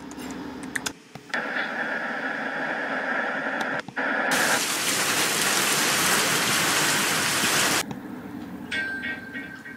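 Hiss of white noise like radio or TV static: from about a second in, a quieter hiss with a steady high tone, then a much louder full hiss for about three and a half seconds that cuts off suddenly.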